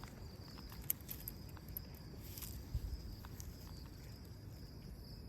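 Footsteps and scattered light clicks of a person walking a dog, over a low rumble and a faint steady high-pitched trill.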